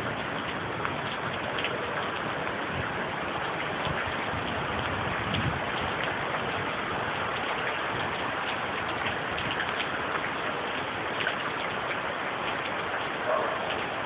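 Steady rain in a storm, an even hiss with scattered louder drop hits throughout.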